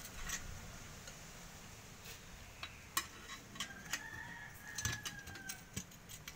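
Scattered light metal clinks and taps from a chain sprocket and its hub, bolts and washers being handled. A faint rooster crow is held for about two seconds in the middle.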